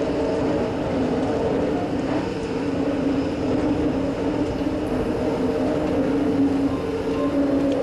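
Bucket wheel excavator's machinery running at work in an open-pit lignite mine: a steady mechanical drone with several fixed hum tones over a continuous rumble.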